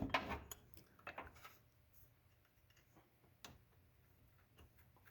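A few light clicks and clinks of small metal parts and screws being handled while a chainsaw bumper spike is fitted, with quiet gaps between them.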